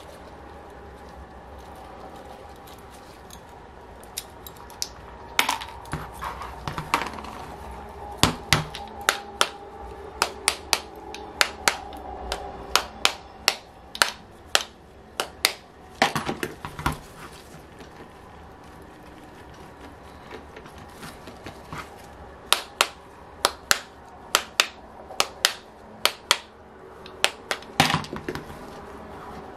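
Many small, sharp metal clicks and taps as the bare crankcase of a model aircraft engine and small hand tools are handled and knocked together on a workbench, likely while the pushrod seals are worked out. The taps come in two busy spells with a quieter pause between.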